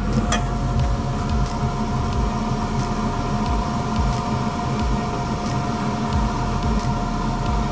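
Steady machine hum with a held mid-pitched tone, and a sharp click a moment in as the mug is set into the laser engraver's rotary attachment, followed by a few light ticks of handling.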